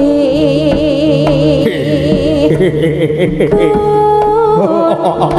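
Live jaranan gamelan music: percussion and low sustained tones under a held, wavering melody line.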